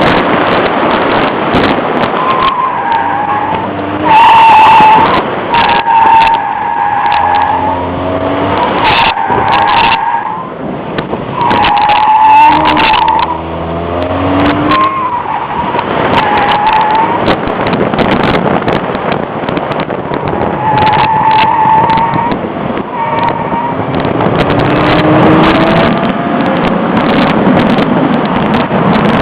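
Chevrolet Cavalier at full throttle on an autocross course, its engine revving up and falling back again and again, with the tyres squealing at the grip limit in a series of short squeals of about a second each through the turns.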